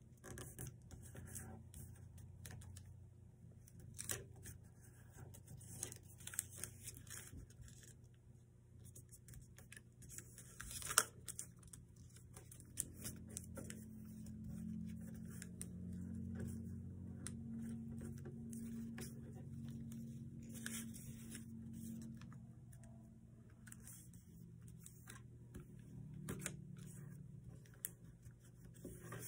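Sheet of paper being handled, folded and creased by hand: faint rustling and crinkling with scattered small clicks, one sharper about a third of the way in. A low steady hum swells in the middle.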